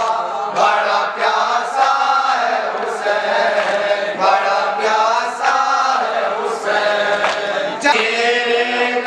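Men chanting a noha, a Muharram lament for Husain. A lead voice into a microphone sings a held, wavering melody with other voices in chorus, over sharp slaps about every half second to a second, in keeping with matam chest-beating.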